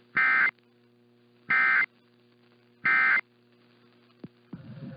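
Emergency Alert System end-of-message code: three short, buzzy bursts of SAME digital data tones, each about a third of a second, repeated about 1.3 s apart. The bursts mark the close of a relayed alert.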